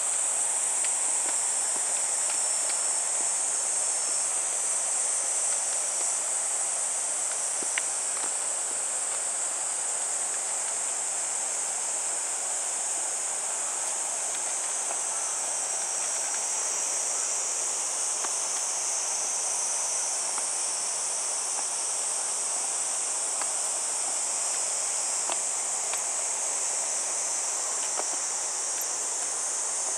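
A steady, high-pitched insect chorus that runs on unbroken in a summer forest. A few faint taps of footsteps on the wooden boardwalk slats come through beneath it.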